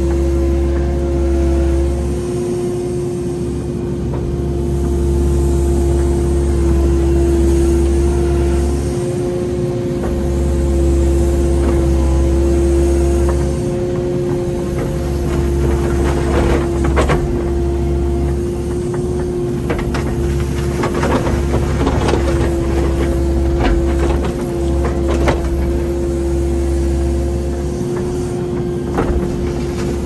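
Kubota 080 mini excavator's diesel engine running, with a steady whine over a deep rumble that comes and goes every few seconds as the machine works. Several sharp knocks and clunks come in the second half.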